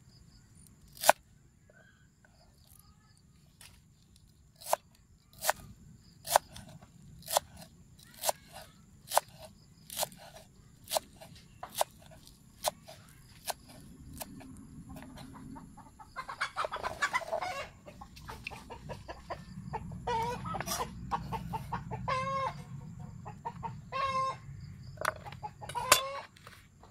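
Cleaver chopping cilantro on a cutting board, sharp single chops a little faster than once a second. About halfway through, chickens start clucking repeatedly.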